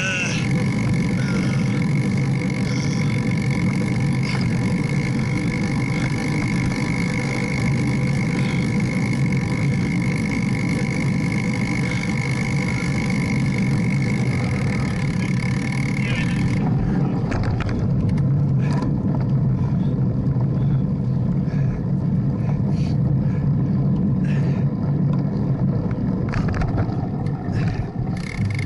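Steady low rumble of wind and road vibration picked up by a handlebar-mounted camera on a road bike rolling slowly. A faint steady high tone runs under it and stops about two-thirds of the way through.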